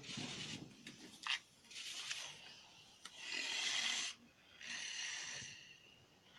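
An animal breathing hard: a few sharp clicks, then three loud hissing breaths or snorts about a second long each, the middle one the loudest.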